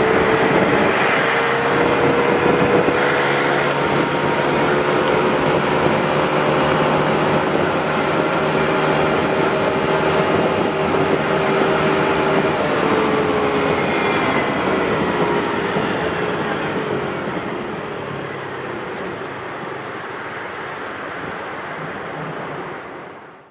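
Suzuki Let's 4 Basket 50 cc four-stroke scooter running under way on a test ride, its engine note drifting in pitch. It eases off and gets quieter about three-quarters through, then cuts off abruptly.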